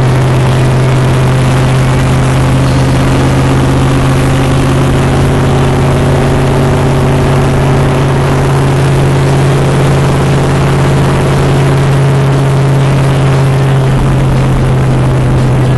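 Car engine and road noise heard from inside the moving car: a loud, steady low drone that barely changes in pitch, with a rough noisy hiss over it.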